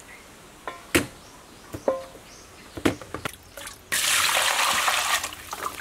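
A few short knocks as cow tail pieces are handled in an aluminium pot, then from about four seconds in a steady stream of water pouring onto the meat in the pot, washing it.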